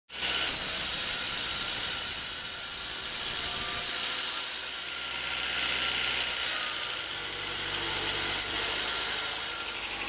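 Band sawmill blade cutting through a very large log: a steady, high rushing noise of the blade in the wood that swells and eases slightly, over the low steady drone of the mill's motor.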